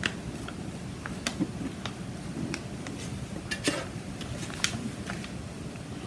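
Metal palette knife spreading white acrylic paint on a stretched canvas: scattered light clicks and scrapes of the blade against the canvas, over a steady low background noise.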